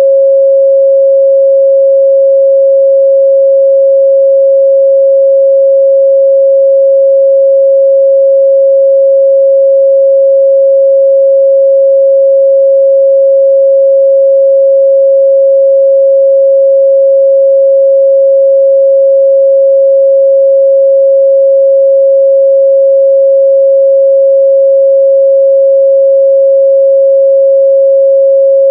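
A steady, loud 545 Hz pure sine-wave test tone, held unbroken at one pitch with no overtones.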